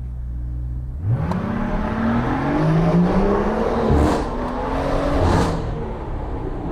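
BMW car engine and exhaust idling, then accelerating hard from about a second in, the pitch climbing and dropping sharply at gear changes about four seconds in and again about five and a half seconds in.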